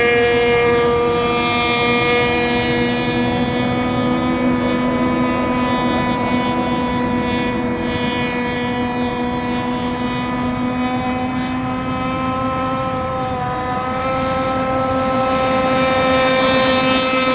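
Radio-controlled racing boat's motor running flat out as the boat skims the water, a steady high-pitched whine that sags a little in pitch midway and rises and swells again near the end.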